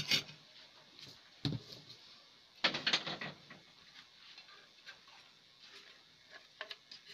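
Scattered clicks and knocks from a CRT TV's circuit board and plastic chassis being handled and fitted back into place. The loudest cluster comes about two and a half to three seconds in, with lighter ticks after.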